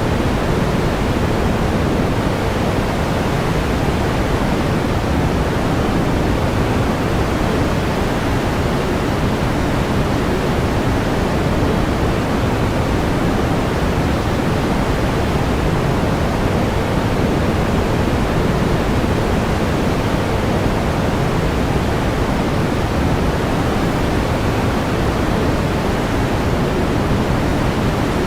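Steady pink noise: an even, unbroken hiss weighted toward the low end, with no changes or events.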